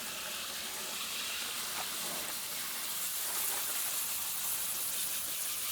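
Water spraying steadily onto an air conditioner's coils, rinsing out the coil cleaner: an even hiss that grows a little stronger about three seconds in.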